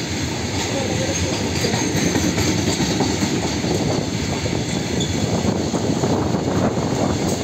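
Long freight train of covered boxcar wagons rolling past close by: a steady rumble with the continuous clatter of wheels over the rails.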